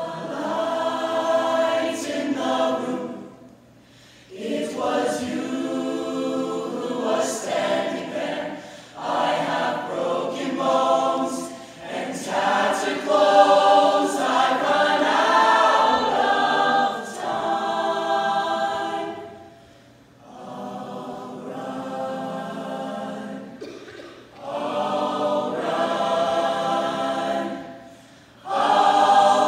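A large choir singing together in long phrases, with short breaks between them.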